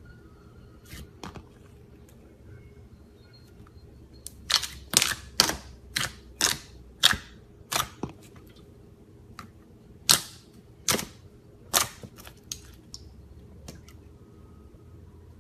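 Slime being pressed and poked, giving a run of sharp pops and clicks, about a dozen of them, coming quickest from about four to eight seconds in.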